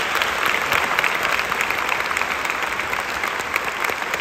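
Audience applauding in a large hall: many hands clapping in a steady, dense patter.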